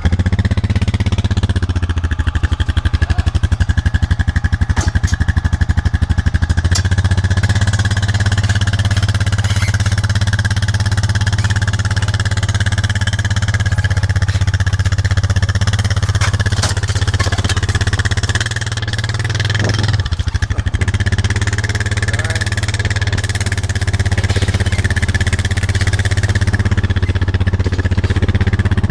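A small vehicle engine, just started, running steadily with a strong low hum, easing slightly about two-thirds of the way through.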